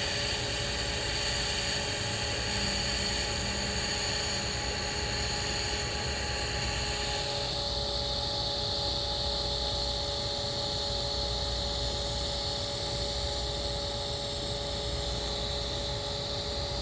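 Steady hiss of a TIG welding arc on carbon steel pipe, with a faint steady hum under it. The hiss changes in tone about seven and a half seconds in.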